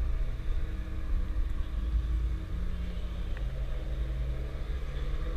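Jeep engine running at low revs, heard from inside the cabin as it crawls along a rough off-road trail: a steady low rumble.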